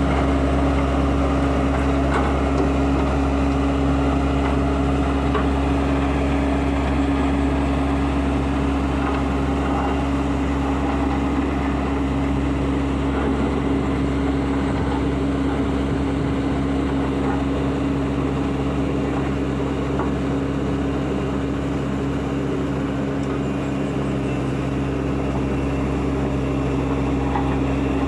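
Heavy construction machine's diesel engine running steadily with a strong, even hum, and a few faint clicks over it.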